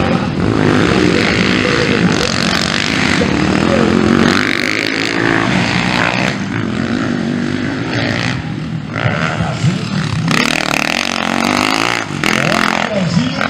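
Motocross dirt bike engines racing on a dirt track, revving up and down as riders accelerate through corners and jumps, with repeated rising and falling pitch sweeps.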